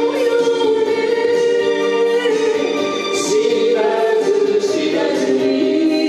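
A woman singing an enka duet ballad into a microphone over a backing track, with long held notes.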